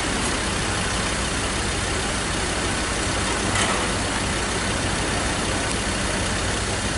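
Steady road traffic noise with vehicle engines idling and running, and a brief click about three and a half seconds in.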